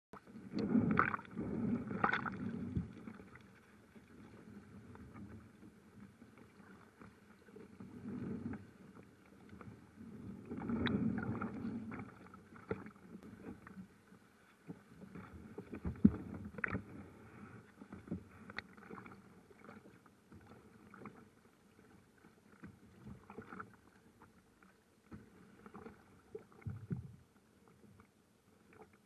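Choppy lake water sloshing and slapping against a kayak's hull in irregular surges, with one sharp knock about sixteen seconds in.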